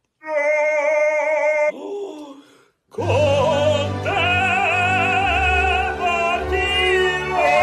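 Operatic singing. A high note is held with a wide vibrato for over a second, then a short falling slide, then a man sings an operatic line over orchestral backing.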